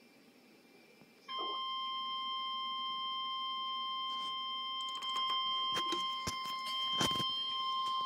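NOAA Weather Radio's 1050 Hz warning alarm tone: a steady single high tone that switches on about a second in and holds, the signal that a warning is about to be read. A few sharp crackles cut across it in the second half, the loudest about seven seconds in.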